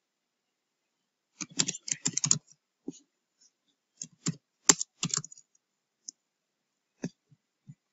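Computer keyboard keys clicking as a command is typed: a quick flurry of keystrokes starts about a second and a half in, followed by scattered single key presses.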